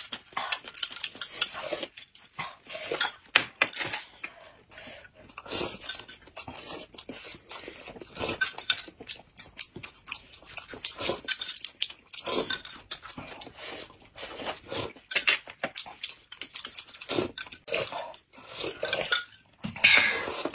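Spoons clinking and scraping irregularly against glass cups and dishes, with sipping and chewing as two people eat a thin corn soup and flatbread sandwiches.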